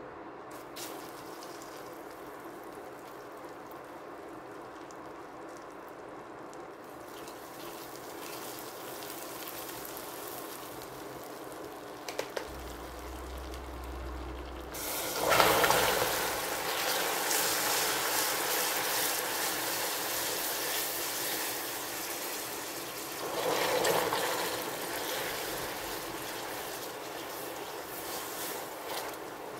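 Caramelised sugar in a stainless saucepan sizzling steadily as butter melts into it. About 15 s in, hot water poured into the caramel sets off a sudden loud hiss and hard bubbling, which keeps going, with a second surge about 24 s in.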